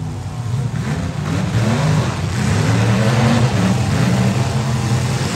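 Several demolition derby cars' engines revving and running hard, their pitch rising and falling, getting louder from about a second and a half in.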